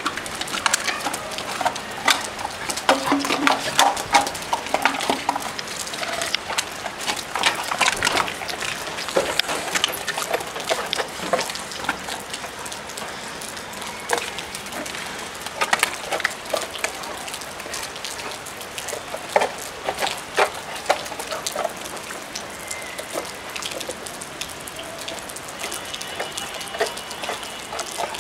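Heavy rain falling on a flat concrete roof: a steady hiss full of sharp splash and drip ticks.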